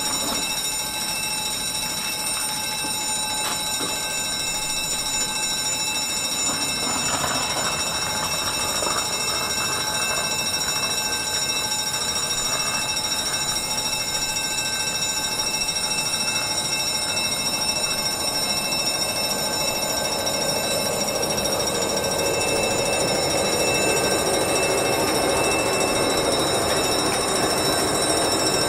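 Level crossing warning bell ringing continuously while the barriers are down. A rising rushing noise builds under it over the last several seconds.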